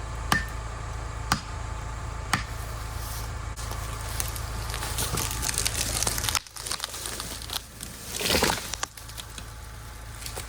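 A felled pine tree going over: crackling and tearing of branches building up, then a loud crash about eight seconds in. Sharp clicks about once a second in the first few seconds.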